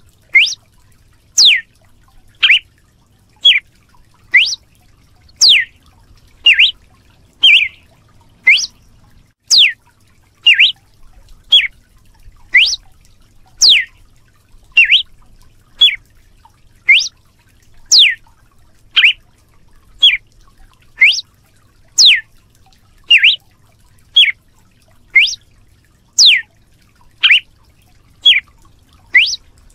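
Red-cowled cardinal (galo de campina) singing a steady, repetitive call, about one sharp note a second. A short clipped note alternates with a quick whistle that sweeps down from high pitch.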